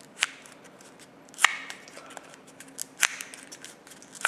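Pleated paper ketchup cup crackling as its folds are pulled open by hand: four short, sharp paper snaps about a second apart, the second the loudest.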